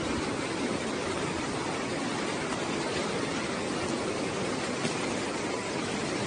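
Fast-flowing floodwater rushing down a street, a loud, steady, even rush of water.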